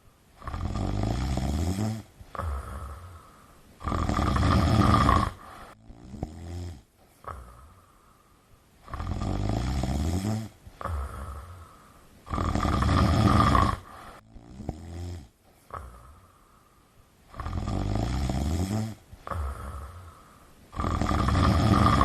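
Scottish Fold cat snoring in its sleep: six rasping snores, each one to two seconds long, coming in pairs with the breaths.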